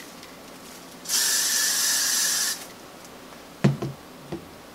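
Aerosol can of Got2b Glued freeze spray hissing in one steady burst of about a second and a half as it is sprayed onto the hair, followed by a few light knocks.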